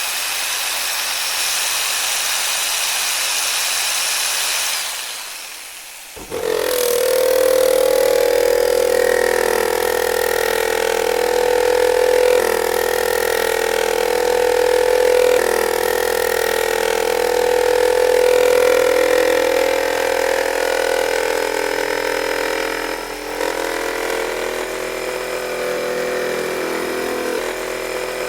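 Electric jigsaw running. For the first few seconds it gives a high, hissy whine; after a short dip, from about six seconds in, it settles into a steadier, lower-pitched drone with a strong hum, shifting slightly a few times.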